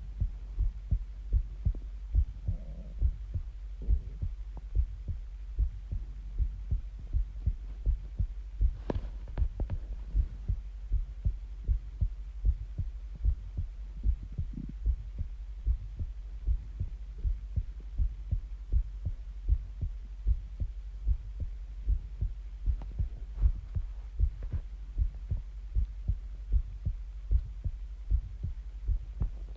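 Human heartbeat picked up close against the chest: a steady, regular beat of low thumps over a constant low hum, with a brief click about nine seconds in.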